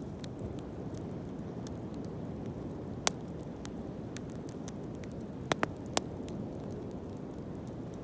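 Wood fire burning with a steady low roar and light crackling, with sharp pops from the burning wood about three seconds in and three more in quick succession about two seconds later.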